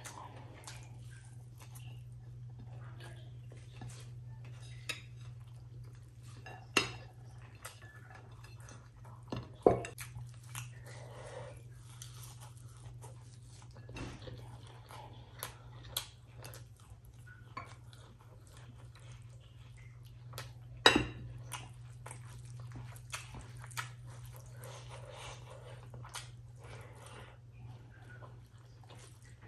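Eating by hand: chewing, and fingers mixing and scooping rice with daal on a plate, with a few sharp clinks of plates and a glass bowl, the loudest about seven, ten and twenty-one seconds in. A steady low hum runs underneath.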